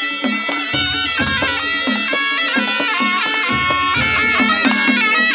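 Nepali panche baja ensemble playing a lively folk tune: the shehnai's nasal reed melody over a steady drum beat.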